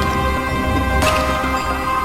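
Background music with sustained tones, a deep beat and a cymbal-like hit about a second in.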